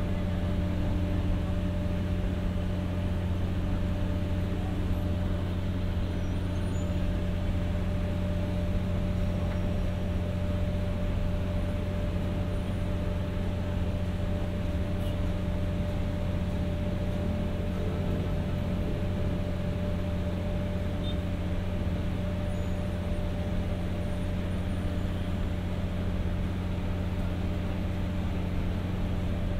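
The on-board diesel generator set of a Philippine National Railways 203-series car (KuHa 202-3) running at a constant speed: an even, unchanging machine hum with a deep drone.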